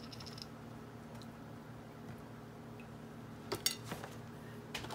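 Quiet room tone with a steady low hum. About three and a half seconds in, and again near the end, a few light knocks and taps as a carton of shelf-stable milk is handled and set down on the kitchen counter.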